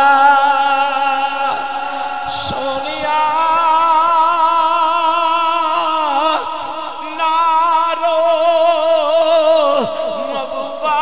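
A man's voice chanting in long, drawn-out melodic notes with a steady wavering vibrato, broken by a few short breaths, in the style of melodic recitation of a Quranic verse.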